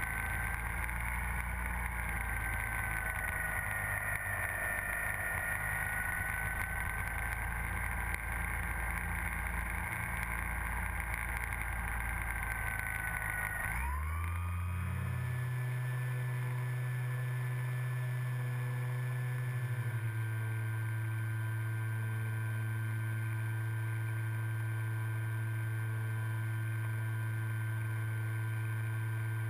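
Electric motor of a radio-controlled model airplane whining steadily in flight, with wind rushing over the onboard camera; the pitch drifts gently with the throttle. About halfway through, the sound switches abruptly to a steadier hum.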